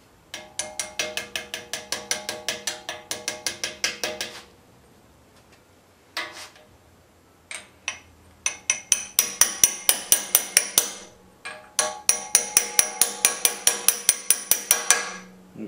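Wooden-handled hammer tapping a steel socket used as a driver, pressing a ball bearing into the steel steering head of a 1969 Rupp Roadster mini bike frame. There are three runs of quick, ringing metal taps, about five a second, with short pauses holding a few single taps. The sound of the blows tells when the bearing is fully home.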